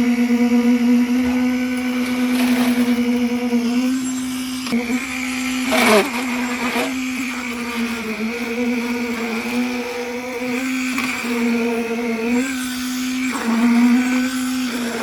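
A motor running at a steady speed with a constant hum and slight dips in pitch. A sharp clatter about six seconds in.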